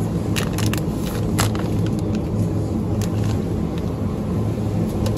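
Steady low electrical hum of a supermarket refrigerated display case, with a few short crackles like plastic packaging being handled.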